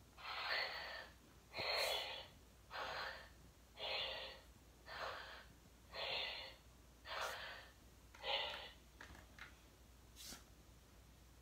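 Battat schnoodle plush puppy toy playing a recorded dog breathing sound through its small speaker: eight breathy huffs, about one a second, followed near the end by a few faint short sounds.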